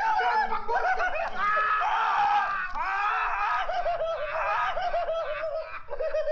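Men laughing hysterically, one voice a loud, high-pitched, drawn-out laugh that breaks off briefly near the end.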